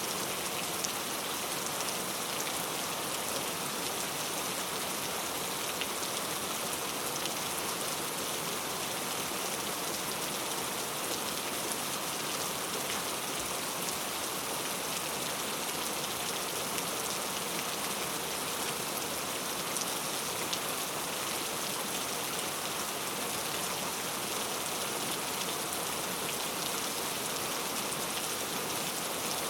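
Heavy rain falling steadily, a dense even hiss of drops hitting a surface.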